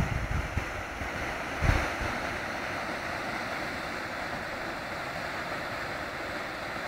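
Water pouring over a river weir, a steady rushing hiss. Wind buffets the microphone in the first moments and once again about two seconds in.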